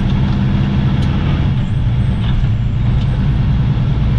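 Semi truck's diesel engine running with a steady low drone, heard from inside the cab, under road noise.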